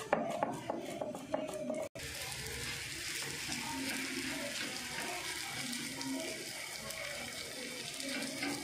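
A hand slapping and patting raw paratha dough on a plate, a few soft slaps, then from about two seconds in a steady sizzling hiss as the paratha cooks on a hot iron tawa.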